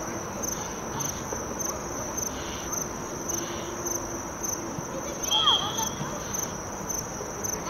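Insects chirping steadily in an even pulsing rhythm over a low background hiss, with a short high whistle and a brief shout about five and a half seconds in.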